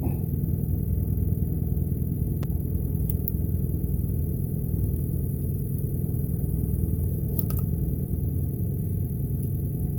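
A boat motor running steadily with a low, even rumble, and a few faint clicks over it.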